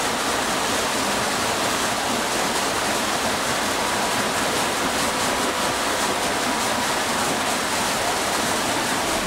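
Water splashing and pouring steadily off a turning wooden water wheel.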